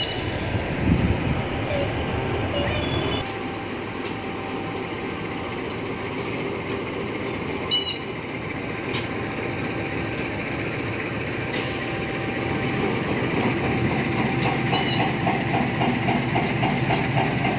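CC203 diesel-electric locomotive engine running as the locomotive moves up to couple onto the carriages, a steady drone with a rhythmic beat, with a few sharp clicks and knocks along the way.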